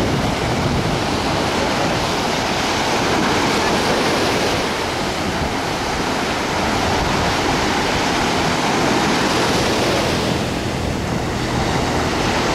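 Sea surf breaking and washing up on a sandy shore as a steady rush, with wind buffeting the microphone.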